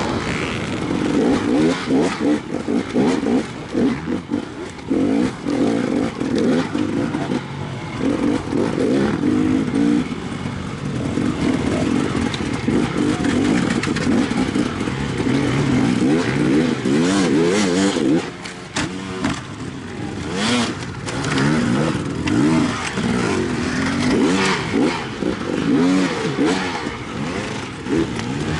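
Enduro dirt bike engine heard up close from the bike itself, revving up and down over and over as the throttle is worked through the track's obstacles. A few knocks and clatter come about two-thirds of the way through.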